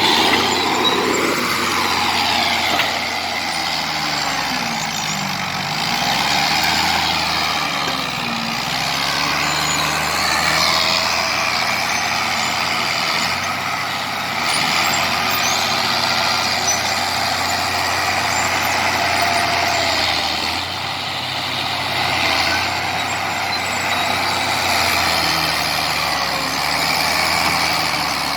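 Komatsu D70LE crawler bulldozer's diesel engine working, its pitch rising and falling several times as it is loaded and eased off, with a steady high-pitched squeal over it.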